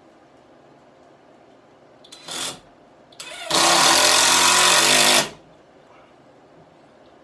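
Power drill running into wood: a short squeeze of the trigger, then a steady run of under two seconds that stops sharply.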